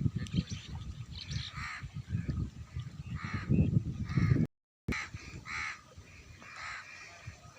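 Birds calling again and again in short harsh calls over a low rumbling background. The sound drops out completely for a moment a little past the middle.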